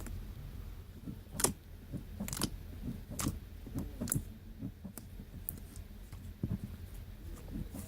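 Homemade borax slime squeezed and stretched by hand, giving irregular sticky clicks and pops, about one sharp one a second among many softer ones.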